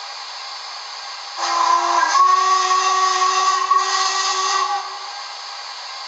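Sampled steam locomotive whistle from a Hornby DCC sound-fitted model of the LMS 'Duchess of Montrose': one long whistle of about three and a half seconds, stepping slightly up in pitch after its first half-second. Under it runs the decoder's steady steam hiss.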